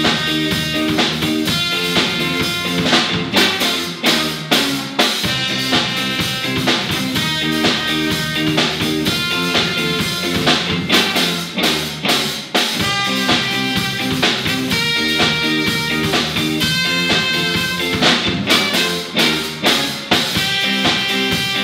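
A reggae band playing live: a trumpet carries the melody over drum kit, electric bass and electric guitar, with a steady drum beat.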